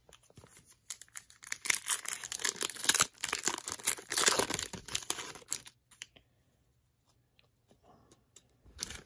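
Foil wrapper of a trading-card pack being torn open and crinkled, crackling for several seconds and stopping about six seconds in. Then a few faint clicks as the cards are handled.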